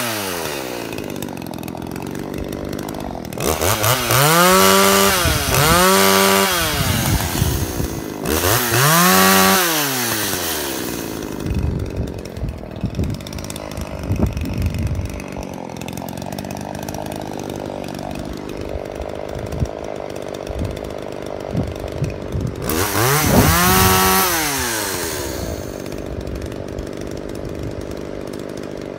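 Poulan 2150 Woodsman two-stroke chainsaw. Its revs drop at the start, then it idles and is blipped four times, each a quick rise and fall in revs, with a long stretch of steady idle before the last.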